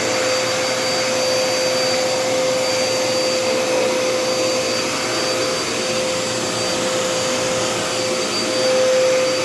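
Dirt Devil Endura Reach cordless vacuum running steadily: an even rush of air under a steady motor whine, a little louder near the end.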